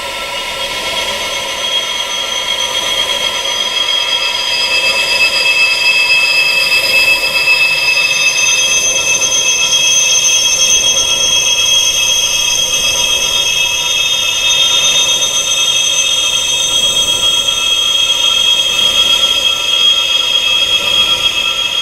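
Wind chimes tuned high for tinnitus sound therapy: many long, overlapping ringing tones held steady over a soft hiss, swelling in over the first few seconds, with new higher notes joining along the way.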